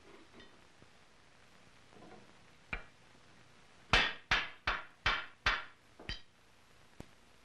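Wood chisel being driven into a curly maple rifle stock by hammer blows, cutting the inlet for the breech plug: a single knock, then a run of six quick, sharp blows at about two to three a second.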